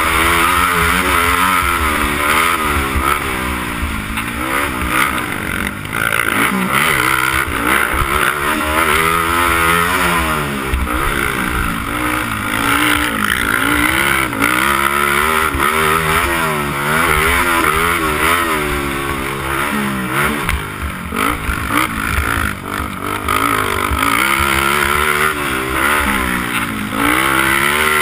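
Honda TRX300EX quad's single-cylinder four-stroke engine at race pace, revving up and dropping back over and over as it is shifted and throttled through the track, its pitch climbing and falling every second or two. A steady rushing hiss runs under it, and the throttle briefly drops off a little past twenty seconds in.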